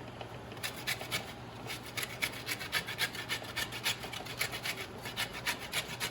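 Orange peel rubbed over a hand grater, rapid rasping strokes at about four or five a second, zesting the fruit.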